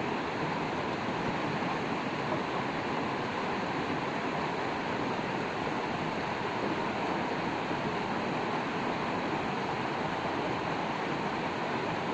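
Shallow rocky river rushing steadily over stones and boulders.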